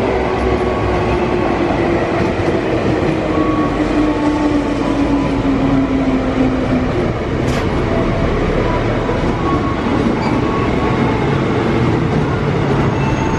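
KRL electric commuter train running along the platform with a steady rumble of wheels on rail. Its motor whine falls steadily in pitch over about the first seven seconds as the train slows. A brief hiss comes about seven and a half seconds in.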